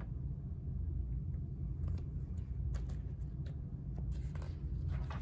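Steady low rumble of room background noise, with a few faint soft ticks and a light rustle near the end as the picture book is handled.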